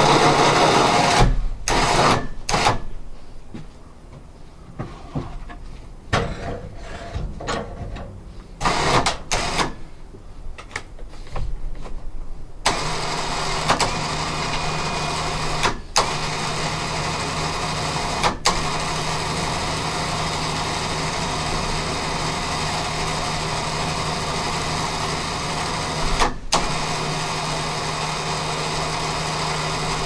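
A 4500 lb electric winch with synthetic line, hauling a large fir log. At first there are short, irregular bursts; about a third of the way in the winch settles into a steady run with a steady low hum, stopping for a moment three times.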